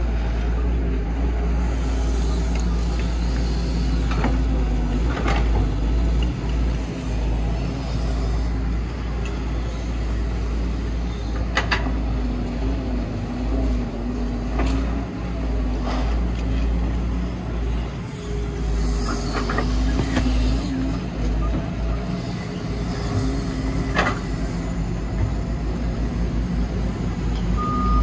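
Diesel engine of an excavator working, its pitch rising and falling with load, with several sharp metallic clanks scattered through it.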